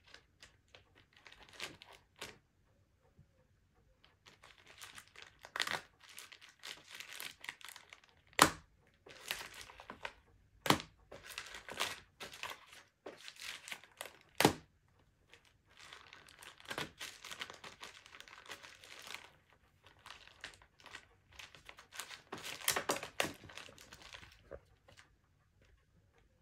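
A Maine Coon cat pawing and scrabbling at papers and a crinkly white wrapper on a wooden table, crinkling and rustling in irregular bouts, with a few sharp clicks.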